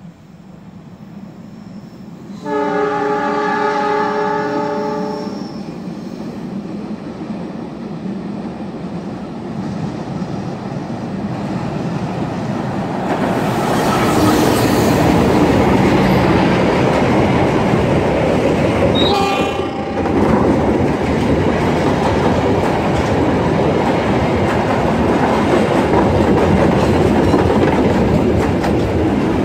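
Diesel locomotive's chord air horn sounding one long blast a few seconds in, then the passenger train's rumble building as it approaches and runs past close by. A second, short horn blast comes about two-thirds of the way through, followed by the steady clickety-clack of the coaches' wheels over the rail joints.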